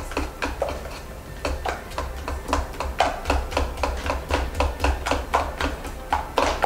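Cake batter of oil and beaten eggs being whisked by hand in a stainless steel pot: quick metallic clicks of the utensil against the pot, about three or four a second.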